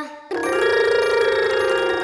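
A long, rapidly trembling tone, a cartoon shiver sound, beginning just after a short gap and swelling slightly before easing down in pitch.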